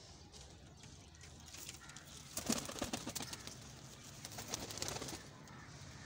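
Domestic pigeons cooing, with a burst of rustling noise starting about two and a half seconds in.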